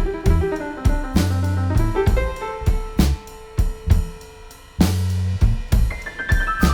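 Background music with a drum-kit beat and held keyboard notes; the beat drops out for about a second in the middle, then comes back, with a falling run of notes near the end.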